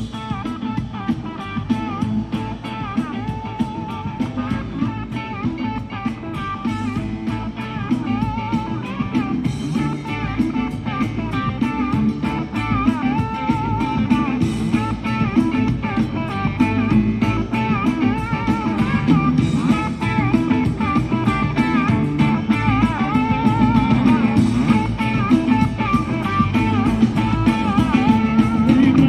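Live blues-rock band playing an instrumental passage: an electric guitar solo with bent, wavering notes over bass and drums, growing a little louder toward the end.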